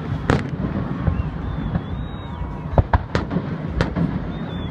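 Fireworks bursting at a display: one sharp bang just after the start, then a quick cluster of bangs about three seconds in, over a steady low background rumble.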